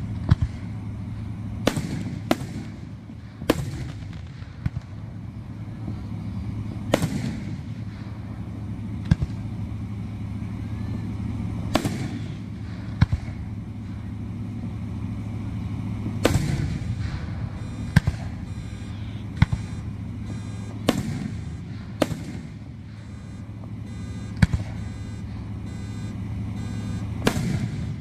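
Aerial firework shells bursting in a display: about fourteen sharp booms, spaced irregularly one to a few seconds apart, some trailing off in an echo. A steady low hum runs underneath.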